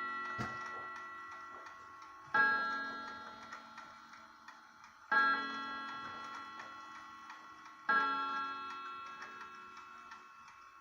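1920 Ansonia No. 48 Cabinet mantel clock striking the hour on its gong: three single ringing strokes about every two and three-quarter seconds, each left to ring and die away before the next.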